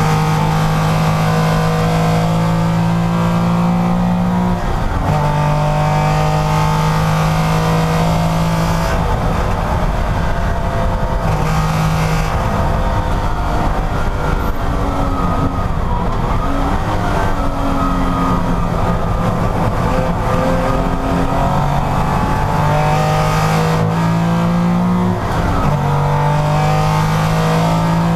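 Porsche racing car's engine running hard at high revs, its note climbing and then dropping sharply several times as it goes through gear changes and lifts for corners.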